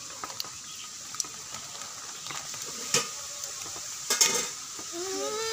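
Steady rain hissing, with scattered sharp ticks of drops. A louder crackle about four seconds in, then a short gliding voiced sound near the end.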